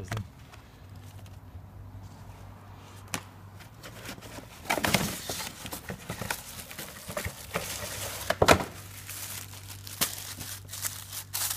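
Plastic packaging crinkling and rustling as a new cabin air filter is taken out of its bag and cardboard box. It comes in bursts from about five seconds in, with one sharp knock later on.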